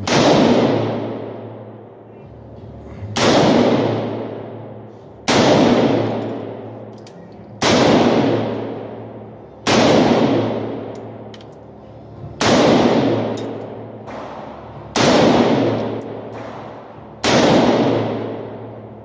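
AR-style rifle fired at a slow, steady pace: eight single shots, one every two to three seconds, each sharp crack ringing on in the echo of an indoor range.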